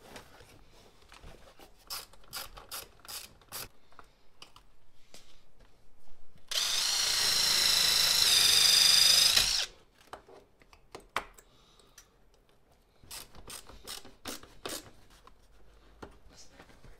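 Ridgid cordless impact driver running for about three seconds, unscrewing the bolt of a floor bracket, its whine stepping higher partway through. Scattered clicks and rattles of parts being handled come before and after it.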